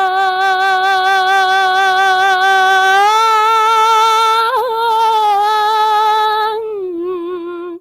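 A woman singing one long held note with vibrato and no accompaniment. The note steps up a little about three seconds in, takes a quick turn around four and a half seconds, drops back near the end and cuts off suddenly.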